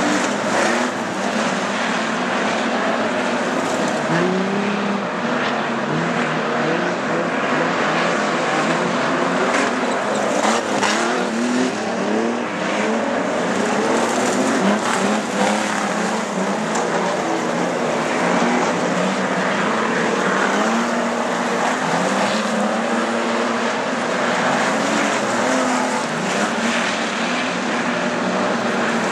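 Several street stock sedans racing on a dirt oval: a pack of car engines revving up and down together, rising and falling as the cars go through the turns.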